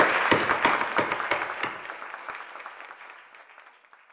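Audience applauding, fading out over a few seconds to near silence.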